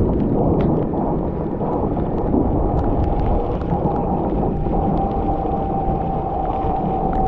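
Wind rushing over the microphone and rolling noise from a bicycle ride through a rainstorm, with scattered ticks. A steady whine joins about three seconds in.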